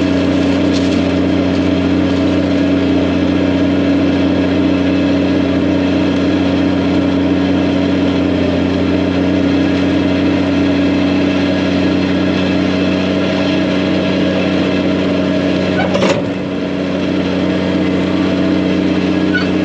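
Case IH Quadtrac tractor's diesel engine running steadily under heavy load as it pulls a tile plow through the field. A brief knock comes about sixteen seconds in, and the engine note dips slightly just after it.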